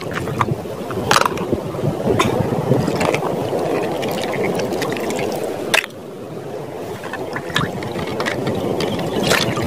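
Shallow running water sloshing and splashing as a hand scoops plastic toy vehicles out of it, with a few sharp clicks of the plastic toys being handled.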